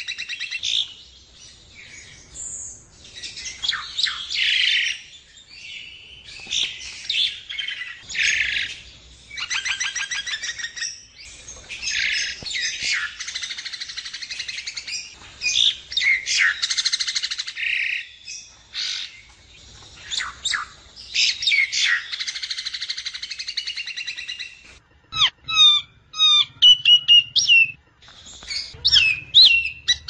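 Black myna calling: a long, varied run of harsh squawks and chattering rattles, turning near the end into short separate whistled notes.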